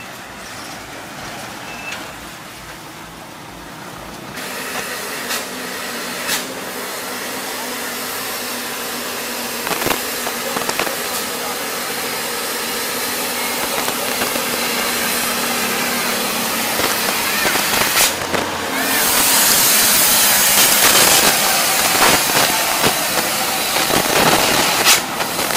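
Diesel engine of a tanker truck working up a steep hairpin bend, growing louder as it comes close. A strong hiss builds under it over the last few seconds.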